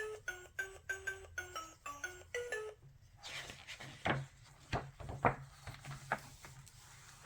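Short electronic jingle from a toy sound book's small speaker: a quick run of plinky, ringtone-like notes, about three a second, that stops about three seconds in. After it come a few seconds of faint hiss with scattered knocks, over a faint steady low hum.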